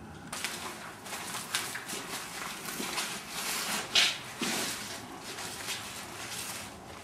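Footsteps crunching and rustling over debris, with a sharper crack about four seconds in.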